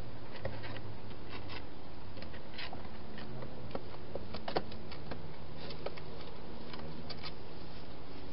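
Wild hedgehog eating at food bowls inside a plastic feeding box: irregular small clicks and crunches, one sharper click about halfway, over a steady hiss.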